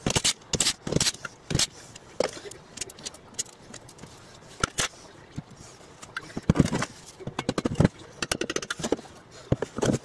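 Metal tools clinking and knocking on the crankcase side cover of a small Briggs & Stratton engine as the cover bolts are undone and the cover is tapped loose with a hammer. There are a few heavier knocks between about six and a half and eight seconds in, then a quick run of light clicks.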